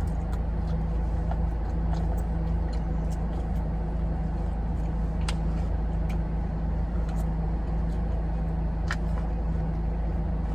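Car engine idling, heard from inside the cabin as a steady low hum, with a few faint clicks.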